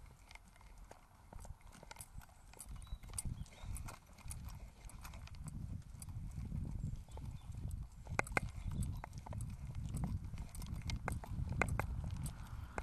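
Footfalls on a hard lane surface: irregular sharp clicks over a low rumble that grows louder towards the end.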